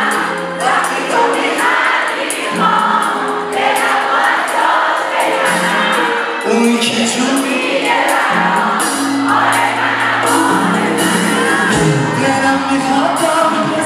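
Live pop band: a male lead singer singing in Persian over electric bass, keyboards and a steady drum beat.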